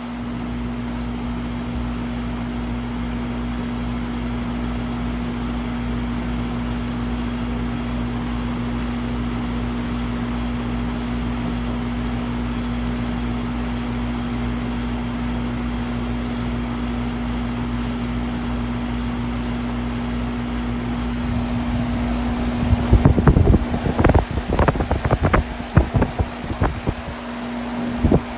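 Air conditioner condensing unit running steadily, with a constant hum and the rush of the condenser fan. Near the end, a string of loud knocks and rattles from handling cut in over it.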